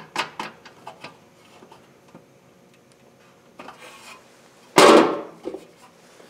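Small clicks and rattles of a screw and knob being fitted to the pulley-cover lid of a benchtop drill press, then one sharp, loud clunk about five seconds in as the cover lid is moved.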